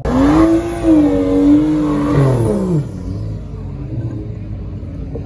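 Car engine revved hard during a burnout, its pitch climbing, holding high, then falling away about two and a half seconds in, followed by a lower, steadier rumble.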